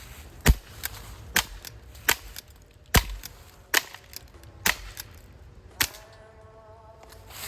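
A string of eight sharp cracks, irregularly spaced about a second apart. A faint steady hum follows near the end.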